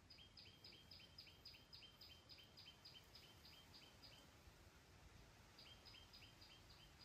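Faint bird calling: a fast, even run of high two-note chirps, about four a second, lasting about four seconds, then starting again after a short pause.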